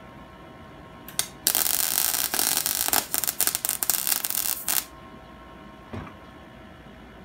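Wire-feed welder arc crackling for about three seconds after a brief first strike, butt-welding a 5/16 bolt onto a snapped steel tensioner rod. A light knock follows near the end.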